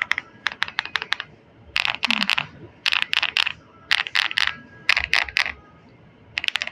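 PMO Wave 75 mechanical keyboard with a thick aluminium case being typed on in its stock form, in short runs of quick keystrokes with brief pauses between them and a longer pause near the end.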